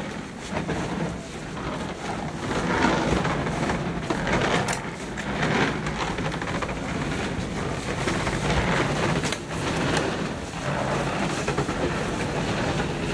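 Steady low rumble and noise with occasional knocks and rustling, as plastic-wrapped packs and jerrycans are handled while unloading a cargo plane's hold.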